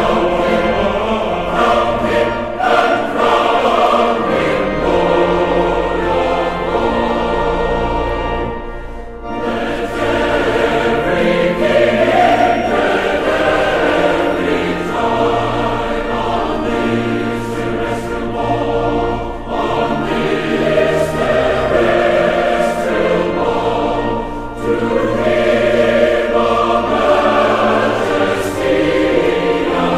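Background music: a choir singing, with a brief break in the sound about nine seconds in.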